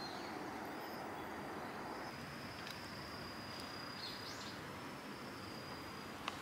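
Quiet outdoor ambience: a steady background hiss, with a thin high-pitched tone held for about five seconds and a short bird chirp about four seconds in.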